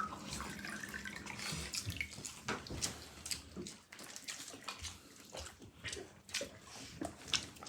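People eating fried rice: scattered small clicks, scrapes and wet chewing and mouth sounds.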